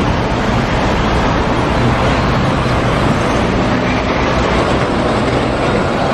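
Steady city street traffic noise with a double-decker bus driving past, its engine a low steady hum under the road noise.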